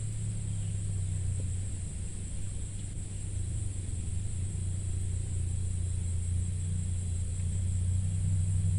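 A steady low, engine-like hum, growing slightly louder toward the end, over a faint constant high hiss.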